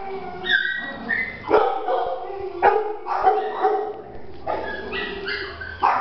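Young dog barking and yipping in short, repeated high calls while playing and mouthing a hand.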